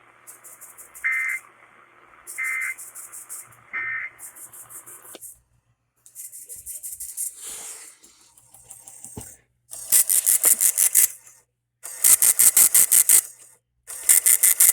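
Emergency Alert System end-of-message data bursts: three short, raspy digital chirps about a second and a half apart, signalling that the alert test is over. After a short gap, loud groups of rapid pulses, about eight a second, follow near the end.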